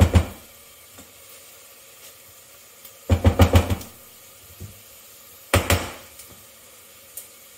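Spatula scraping and knocking against a stainless steel saucepan as chopped onions are stirred, in three short bursts: at the start, about three seconds in, and near six seconds. Between the bursts the onions fry with a faint sizzle.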